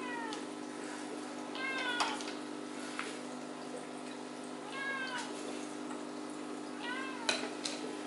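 An animal's short calls that rise then fall in pitch, four times at intervals of two to three seconds, over a steady low hum with a few sharp clicks.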